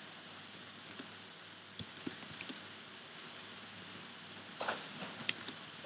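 Typing on a computer keyboard: two short runs of key clicks, the first about two seconds in and the second near the end.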